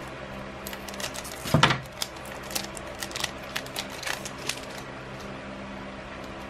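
Scissors snipping through the foil wrapper of a Magic: The Gathering set booster pack about one and a half seconds in. The wrapper then crinkles in a run of small crackles as the cards are drawn out, over a steady low hum.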